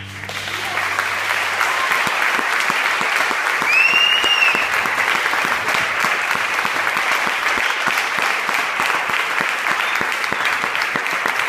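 Concert audience applauding, a dense steady clatter of many hands clapping. The orchestra's last low chord dies away in the first couple of seconds, and a short whistle from the audience rises and falls about four seconds in.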